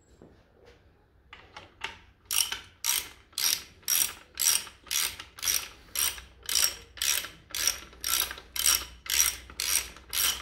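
Hand ratchet wrench worked back and forth on a bolt, giving an even run of clicking strokes at about two a second, faint at first and then loud.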